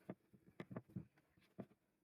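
Five faint, irregular taps in two seconds.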